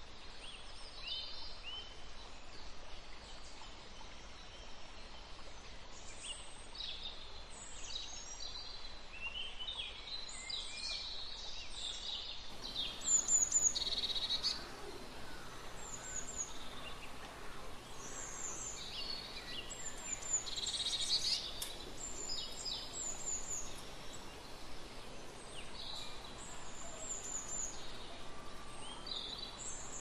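Small songbirds chirping and calling over a steady outdoor hiss: many short, high chirps throughout, with a brief louder patch just after the recording changes about twelve seconds in.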